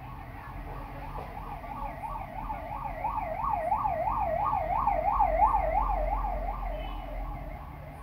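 Emergency vehicle siren in a fast up-and-down yelp, about three to four sweeps a second, growing louder toward the middle and fading near the end.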